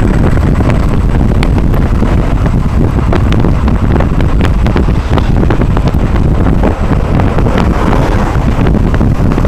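Wind buffeting the microphone of a camera on a moving motorcycle, a loud steady rumble, over the Golden Wolf (金狼) 150 motorcycle's engine running as it rides along.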